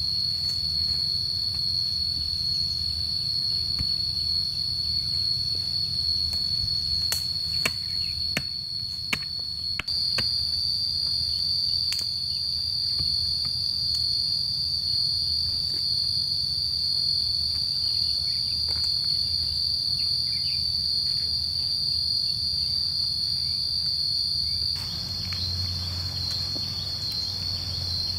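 Insects droning in a steady high-pitched chorus, with a few sharp knocks near the middle.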